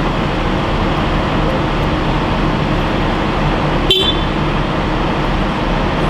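Steady street and traffic noise. About four seconds in, a single sharp click with a brief high chirp, like a short car-horn toot.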